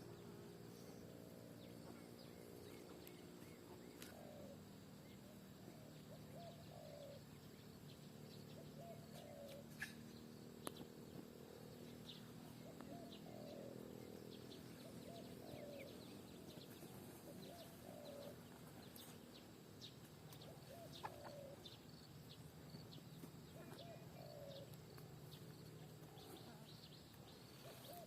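Faint garden ambience: a bird giving short calls over and over, about one a second, over a low steady hum, with a few light ticks.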